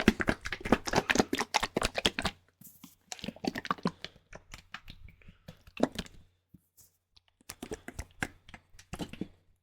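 Rapid tapping and clicking in several quick flurries with short pauses between them, an ASMR tapping trigger.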